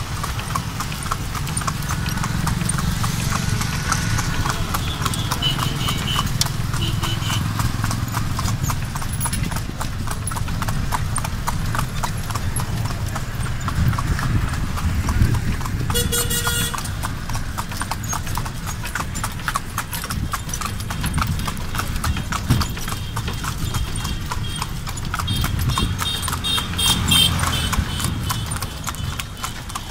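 A horse's hooves clip-clopping steadily on a paved road as it pulls a tonga, a two-wheeled horse cart, over a low rumble. A brief pitched sound is heard about halfway through.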